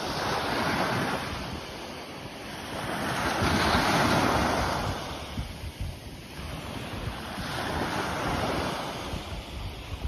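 Small waves breaking on a sandy beach and washing up the shore, the surf swelling and fading in turn, loudest about three to four seconds in. Wind buffets the microphone underneath.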